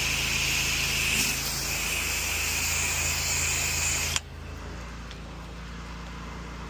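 Pressure washer spraying water with a loud steady hiss that cuts off suddenly about four seconds in, leaving the machine's motor running with a steady low hum.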